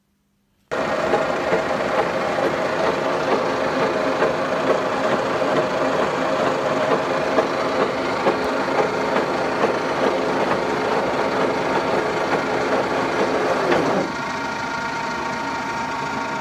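Metalworking machine running under load as it cuts metal from an excavator wheel hub, a steady motor sound with a faint regular knock. About 14 s in it drops to a lighter, smoother hum as the cut eases off while the machine keeps turning.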